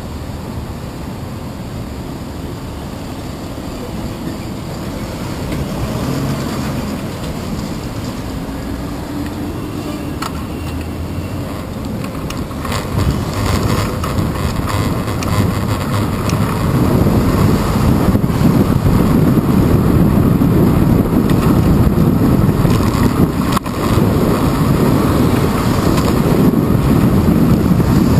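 City street traffic heard from a bicycle, with wind rushing on the handlebar-mounted camera's microphone; the low rumble gets louder about halfway through as the bike gets moving.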